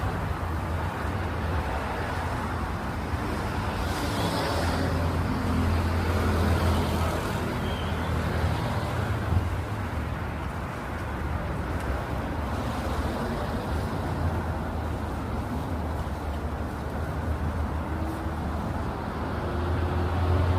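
Steady low rumble of a motor vehicle running, with a faint rising whine over the last few seconds.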